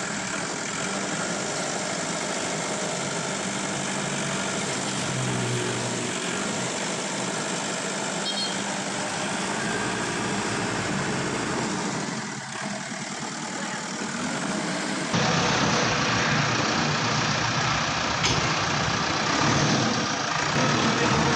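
Diesel engines of heavy machinery running steadily. The sound changes abruptly and grows louder about 15 seconds in.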